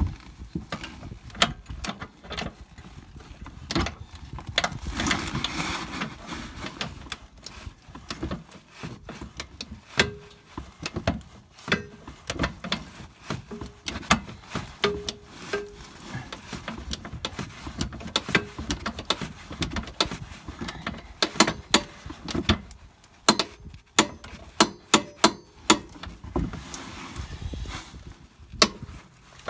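Metal clinks of a socket going onto a suspension-arm bolt, then a ratchet wrench clicking in runs as the bolt through the lower wishbone arm's bush is tightened, with the densest run of clicks about two thirds of the way through.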